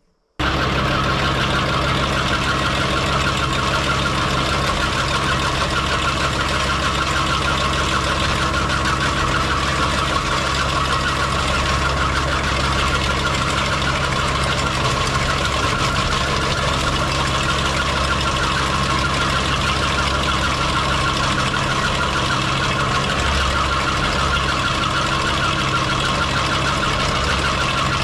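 Skid steer engine running steadily at working throttle, driving a hydraulic sickle bar mower that chatters as it cuts through overhanging branches.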